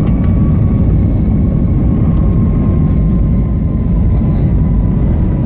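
Airbus A321 on its landing rollout, heard from inside the cabin: a loud, steady low rumble of engines and the aircraft running along the runway, with a faint whine that fades out partway through.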